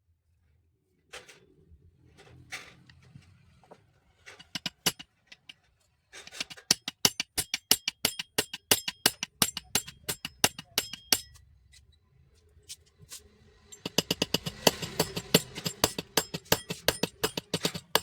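Hand work on a tile cutter during repair: scattered clicks, then about six seconds in a fast, even run of sharp metallic clicks, about eight a second, lasting some five seconds. A denser, louder run of clicks follows near the end.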